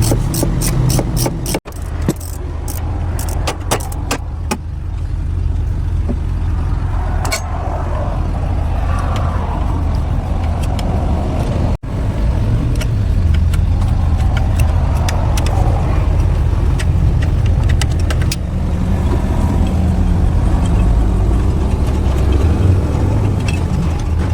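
Steady low drone of a running engine, with scattered sharp metallic clicks and taps in the first few seconds. The sound drops out briefly twice.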